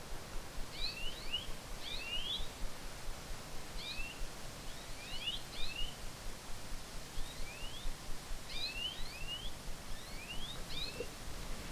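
Birds singing: short rising chirps in little groups of two or three, coming every second or so, over a faint steady background hiss.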